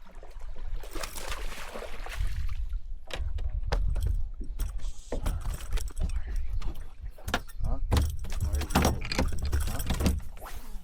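Many sharp clicks and knocks in quick succession over a steady low rumble: handling and gear clatter aboard a bass boat.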